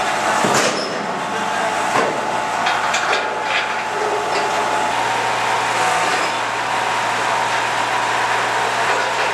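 A steady engine drone from heavy machinery, with a few sharp metallic clanks about half a second, two seconds and three seconds in as steel road-barrier sections are knocked into line.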